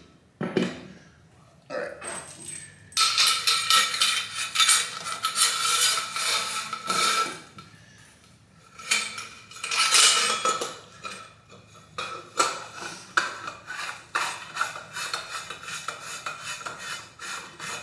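Metal tube parts of a brushed-nickel floor-mount tub filler scraping and clinking as they are handled and fitted together, in three stretches with short pauses between, a thin ringing note under the first stretch.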